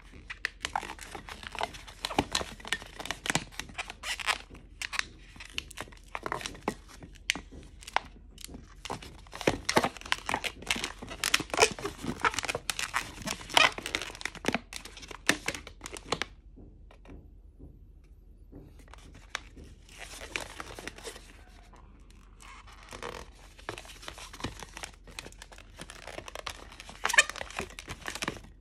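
Inflated latex modelling balloons rubbing and squeaking against each other and the hands as they are twisted and locked into a figure, in quick irregular strokes, with a lull of a few seconds just past the middle.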